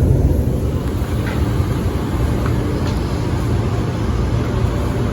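Suburban electric train at a station platform, a steady low rumble with a few faint high clicks.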